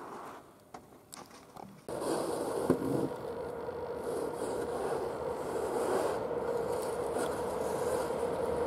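ChS7 electric locomotive and its passenger train approaching on the rails: a steady rumble and rush with a droning hum, gradually growing louder. It starts abruptly about two seconds in, after a few faint clicks.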